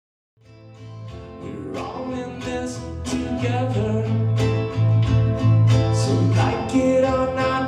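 Instrumental song intro led by strummed acoustic guitar over sustained low bass notes. It starts from silence about half a second in and builds in loudness over the first few seconds.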